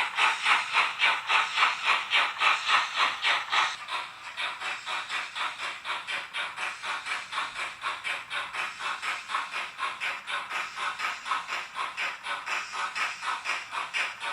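Steam-locomotive chuffing from a Dietz X3 sound decoder in an HO-scale BR 96 model locomotive, played through the model's small speaker: an even run of about five exhaust beats a second. The chuffing drops in level about four seconds in and continues more quietly.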